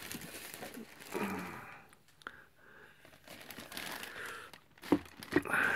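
Clear plastic zip-lock bag crinkling as it is handled and lifted out of a cardboard box, with a couple of short knocks near the end.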